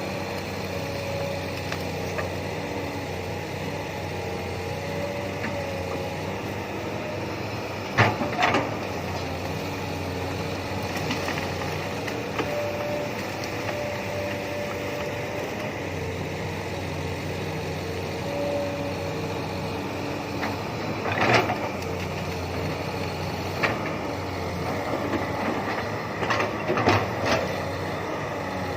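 Komatsu PC200 hydraulic excavator working: the engine runs steadily under a whine that steps up and down in pitch as load changes. Sharp knocks or clanks come about eight seconds in, again around twenty-one and twenty-four seconds, and in a quick cluster near the end.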